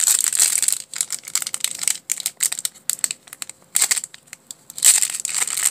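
Foil wrapper of a Panini Revolution basketball card pack being torn open and crinkled by hand. The crackling thins out to a few scattered crinkles in the middle, then picks up again near the end.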